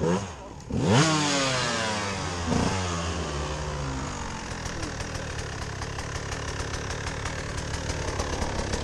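Two-stroke KTM enduro motorcycle engine revving up and dropping back about a second in, then running steadily at low revs with a rapid, even beat.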